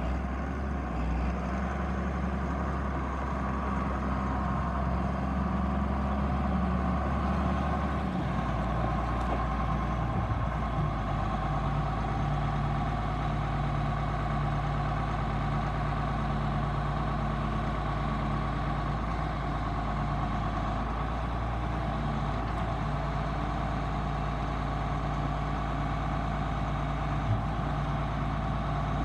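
1979 John Deere tractor's diesel engine running steadily while the tractor drives and works its front loader, the engine note shifting in pitch a couple of times about a third of the way in.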